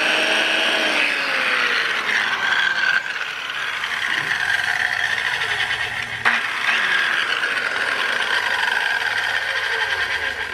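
1961 Craftsman 6.5-inch electric circular saw, its brushed motor running with no load: a steady whine with a light rattle, sounding healthy and fairly quiet. The sound drops slightly about three seconds in, then comes back up after a click about six seconds in.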